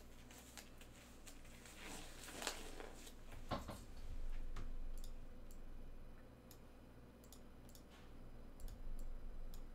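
Faint, scattered light clicks of a computer mouse, with a brief rustle about two to three and a half seconds in.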